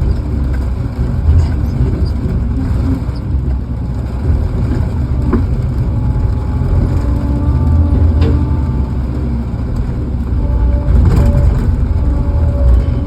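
An engine running steadily with a heavy low rumble, with faint wavering whines and a few light knocks over it.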